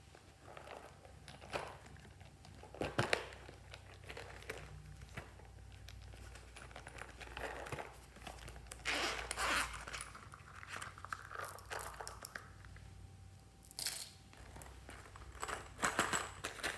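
Hands squeezing and handling soft rubbery pencil cases and coin purses, making crinkling, rustling sounds with scattered sharp clicks, louder about halfway through and again near the end.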